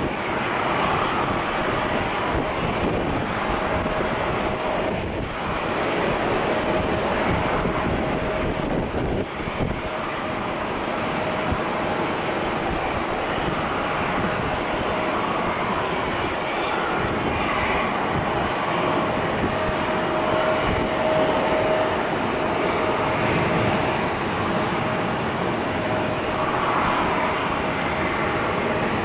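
Airliner jet engines running, heard from inside the cabin: a steady rumble with a faint steady whine.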